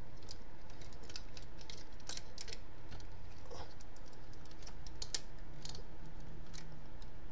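Irregular small clicks and taps from the parts of a No Brand MP-10 Optimus Prime transforming figure as they are folded and pressed into place by hand.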